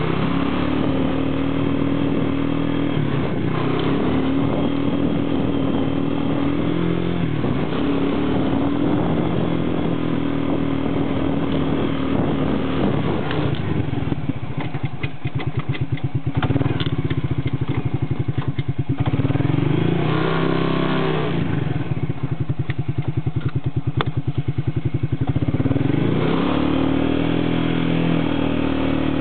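1991 Suzuki Quad Runner 300 4WD's single-cylinder four-stroke engine running under way, its revs rising and falling several times. Through the middle it slows to a low, even beat with each firing stroke heard separately, then revs up again.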